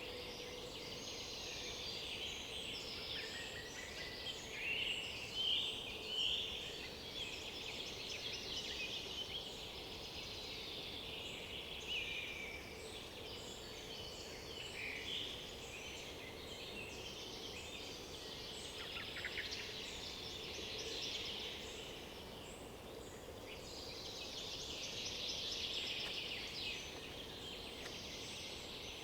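Several woodland songbirds singing at once, a dense overlapping chorus of high-pitched phrases and calls, with louder nearby bursts a few seconds in and again near the end.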